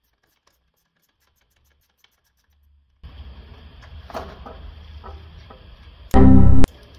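Near silence for about three seconds, then faint clicks of a hand wrench on rusty exhaust bracket bolts. Just after six seconds comes a very loud ringing burst lasting about half a second.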